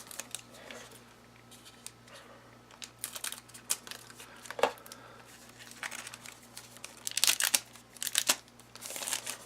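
Crinkling and tearing of a trading-card pack wrapper being opened, in short scattered bursts, the loudest about seven seconds in.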